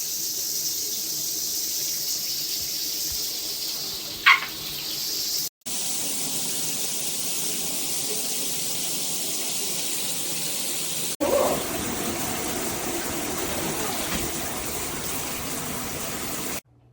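Water spraying steadily from a shower head, broken by short gaps where clips are cut together. About four seconds in, a brief high squeak stands out above the spray.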